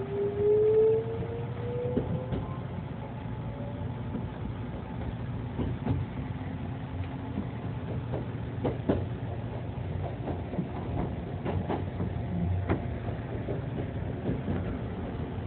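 Kintetsu electric express train heard from inside the carriage: a motor whine rising steadily in pitch over the first few seconds as the train picks up speed, then a steady running rumble with scattered clicks and knocks from wheels on rails.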